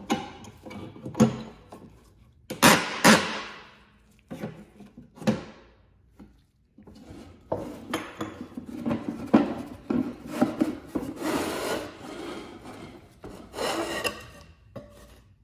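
End-cutting nippers pull small nails out of an old wooden drawer, giving several sharp creaks and clicks in the first five seconds. Then the thin wooden drawer bottom is slid out of its grooves, a long scraping rub of wood on wood that stops near the end.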